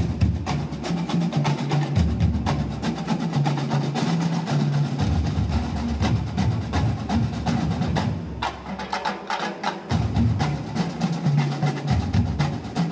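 School drum and lyre corps drumline playing a fast percussion cadence: rapid snare-drum strikes over heavy bass and tenor drum beats, breaking in suddenly.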